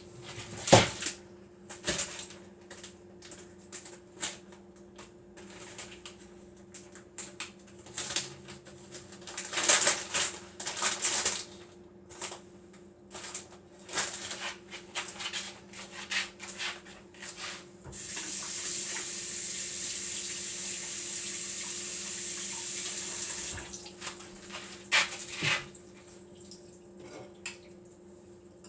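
Kitchen handling sounds: scattered clicks and knocks of dishes and containers being moved. Past the middle comes about five seconds of steady running liquid, like a tap or a pour, which stops suddenly.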